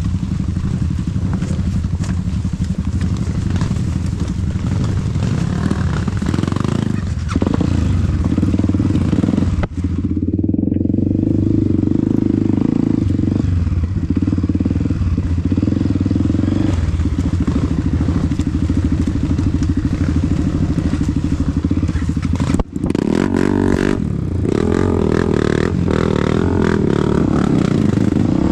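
Off-road trail motorcycle engines running and revving, the engine note rising and falling. The sound breaks off for an instant twice.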